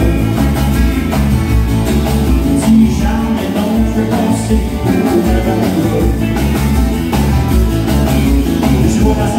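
Live country-rock band playing through a PA system: strummed acoustic guitar and electric guitars over bass and drums with a steady beat, and a man singing.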